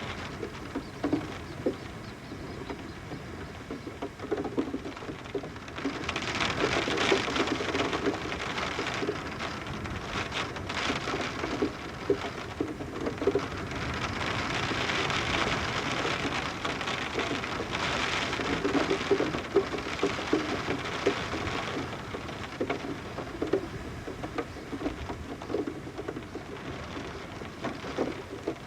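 Rain pattering on a window, heard from indoors, with water dripping off the roof in many small drips. The rain grows heavier about six seconds in and eases again near twenty-two seconds.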